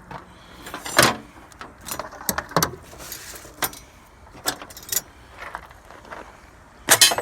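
Small pieces of scrap metal and hardware being handled and tossed while sorting, giving a string of separate clinks and knocks a second or so apart, loudest about a second in and near the end.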